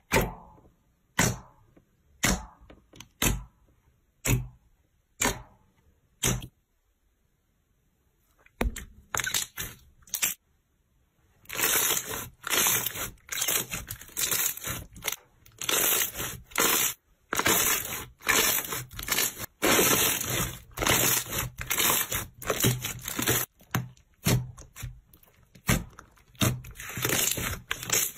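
Clear slime pressed by hand, giving sharp pops about once a second. After a short pause, hands squeeze and fold it, making dense runs of crackling and popping.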